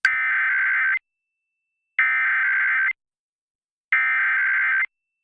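Emergency Alert System SAME header: three one-second bursts of buzzy digital data tones, each about a second apart, that encode and announce the start of an alert, here a required monthly test.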